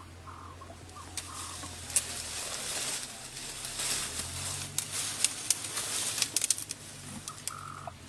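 Leaves rustling and twigs snapping as an elephant calf pushes through dense bush, with a run of sharp cracks in the middle few seconds.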